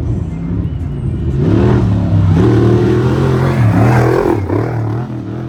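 Off-road race vehicle passing at speed. Its engine revs up and down as it goes by, loudest in the middle, then fading away.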